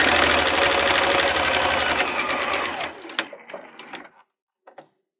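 Electric sewing machine stitching a straight seam along a folded cotton hem, the motor's steady hum under a fast, even run of needle strokes. It stops about three seconds in, followed by a few light clicks.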